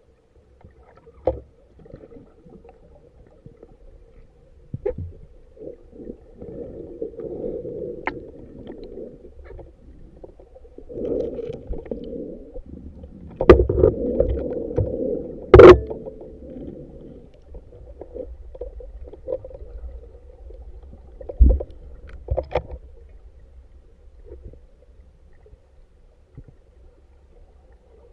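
Underwater sound picked up by a camera in a waterproof housing on a speargun: a muffled, murky rumble with scattered knocks and bumps from handling the gun. Two loud knocks come a little past the middle, and another about three-quarters through.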